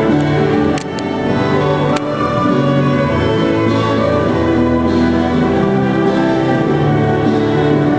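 Celtic ensemble music in slow, held chords, with violin among the instruments; a couple of small clicks sound about a second in.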